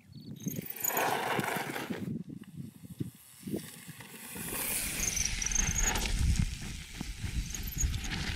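Mountain bike riding down a grassy dirt trail: tyres rolling and skidding on dirt, with rushing wind, in bursts that change at each cut. There is a heavier rumble from about halfway.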